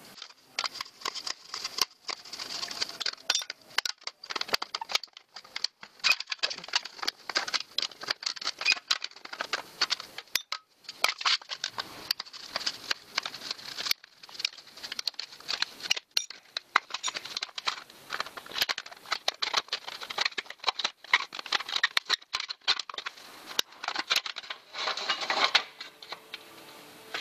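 Red-handled aviation tin snips cutting thin sheet metal, trimming the edge of a formed bicycle mudguard: a continuous run of short, crisp snips and metallic crunches, with a brief pause about ten seconds in.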